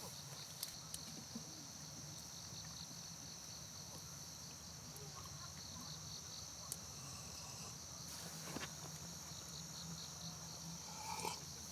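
Insects chirring in a steady, high, continuous trill, with a few faint clicks and taps.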